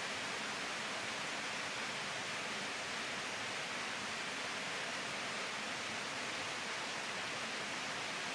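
Waterfall running, a steady even rush of water with no change.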